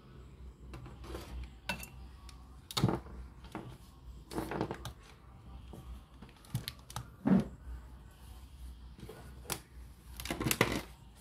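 Handling noise: irregular short clicks and knocks, the loudest about three, four and a half, seven and ten seconds in, over a faint steady low hum.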